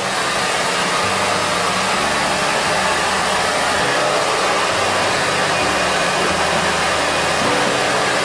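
An electric appliance running on mains power with a loud, steady rushing noise.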